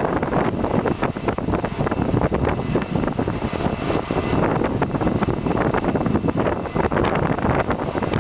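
Steady loud industrial noise with wind buffeting the microphone, broken by frequent irregular clicks and knocks.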